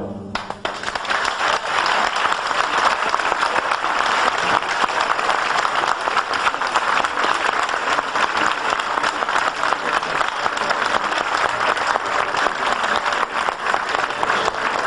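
A concert audience applauding, breaking out within the first second and keeping up steadily, dense and even.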